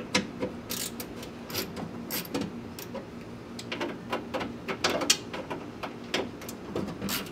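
Hand ratchet clicking in short, irregular runs with light metal knocks as 8 mm bolts on a truck door's inner panel are loosened.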